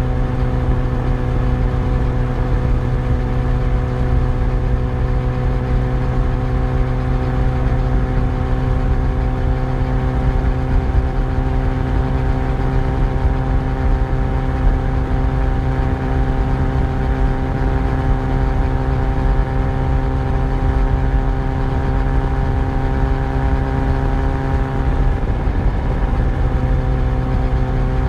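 Yamaha FZ1's inline-four engine running under way at a steady pitch, over a low rumble. Its pitch dips briefly and comes back about 25 seconds in.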